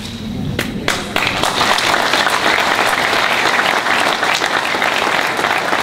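Audience applause: a couple of scattered claps, then the hall breaks into full, steady clapping about a second in.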